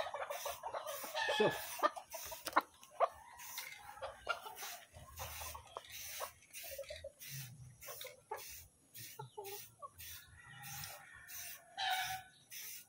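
Hand rubbing the car's painted bonnet in quick back-and-forth strokes, a light swish about two to three times a second, with chickens clucking on and off.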